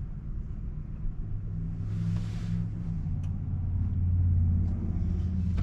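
Low road and tyre rumble heard inside a moving car's cabin, swelling louder from about a second and a half in, with a brief hiss about two seconds in.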